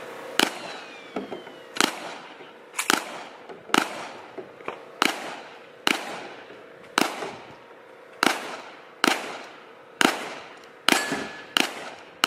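Gunshots fired one at a time at a steady pace, about a dozen sharp cracks roughly one a second, each followed by a short echo.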